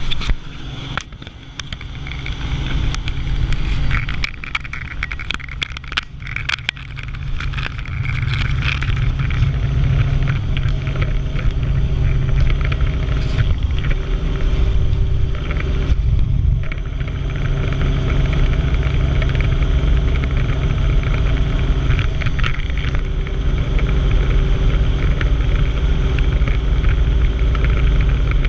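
Helicopter cabin noise in flight: the engine and main rotor running with a heavy, steady low drone. Through the first eight seconds or so there are scattered knocks and rattles, and the drone grows louder before it holds steady.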